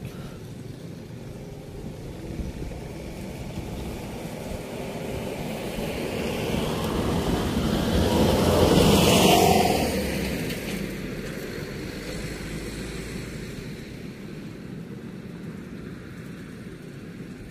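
A road vehicle passing by: its engine and tyre noise swell over several seconds, peak about nine seconds in, then fade away.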